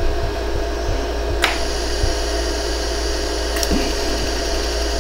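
Jewelry laser welder's steady machine hum, with a sharp snap of a laser pulse about a second and a half in and another about two seconds later, as pulses fuse fine gold wire into holes in a hollow gold earring.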